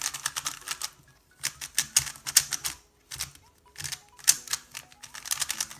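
MoYu WeiLong GTS2M magnetic 3x3 speed cube being turned by hand for the first time. Its plastic layers clack as they turn, in several quick bursts of rapid clicks with short pauses between.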